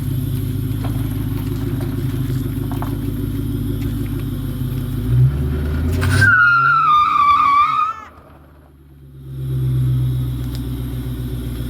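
1996 Mustang GT's 4.6-litre two-valve V8, breathing through Thrush chambered mufflers, running steadily, then revving about five seconds in as the tires squeal for about two seconds in a wheel spin. The sound drops away sharply, then the engine comes back up.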